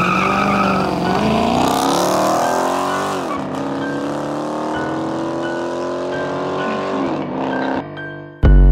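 A car engine accelerating hard through the gears. Its pitch climbs for about three seconds, drops sharply at a gear change, climbs slowly again, then falls away about seven seconds in. Near the end a loud, deep bass boom cuts in.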